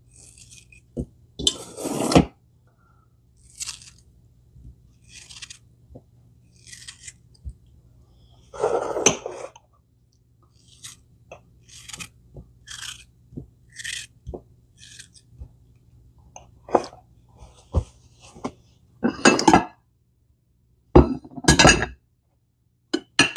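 Kitchen handling sounds: a knife slicing peaches with irregular short clicks and scrapes, and ceramic ramekins clinking as they are set down on china plates, loudest near the end.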